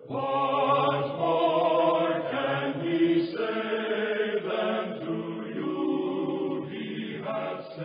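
Choir voices singing long held chords that change every second or so, in slow hymn-like music.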